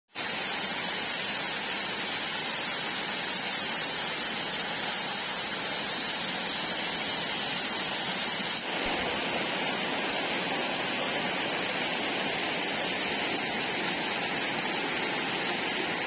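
Small waterfall rushing steadily over boulders, a continuous hiss of falling water that grows slightly louder a little past halfway.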